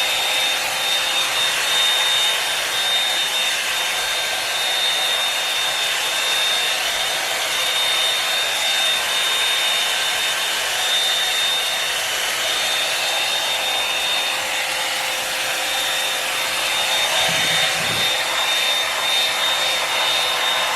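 Revlon One-Step Hair Dryer and Volumizer hot air brush running steadily on its low setting while being brushed through hair: an even rush of blowing air with a thin, constant high whine.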